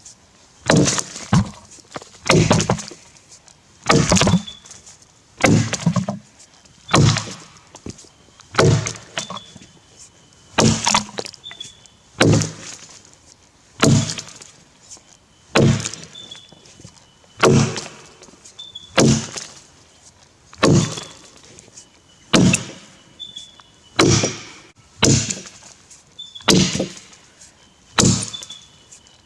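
Tassie pattern axe chopping into a Grey Gum log, steady single blows about every second and a half, each a sharp thunk of steel biting wood.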